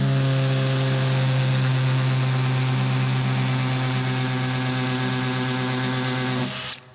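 Makita 18V cordless drill on its hammer-drill setting, boring a masonry bit into a cinder block. It runs loud and steady, the chuck hammering as it turns, then stops near the end.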